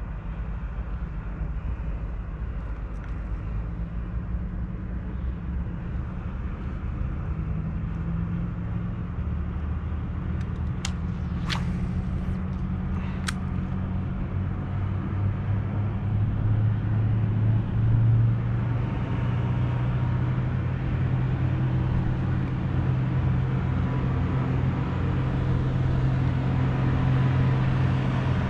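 A steady, low motor drone made of several stacked tones, growing louder a little past halfway and holding there. Three sharp clicks about a third of the way in.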